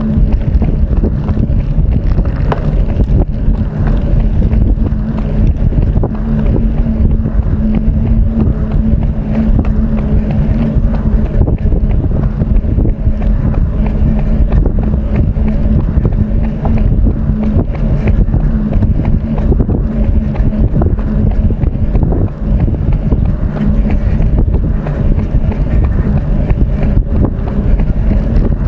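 Wind buffeting the microphone of a camera carried on a run: a loud, steady rumble with a steady low hum beneath it.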